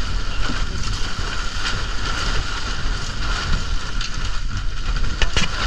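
Wind buffeting the microphone over the open sea, with a steady low hum underneath and a couple of sharp knocks near the end.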